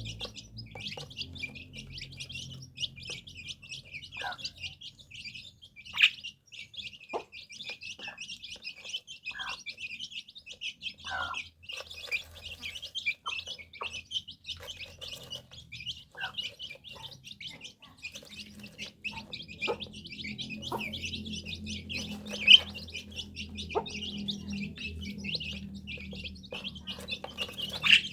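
Small birds chirping continuously in rapid high notes, with scattered light ticks and taps; a sharper click stands out about six seconds in and another about twenty-two seconds in.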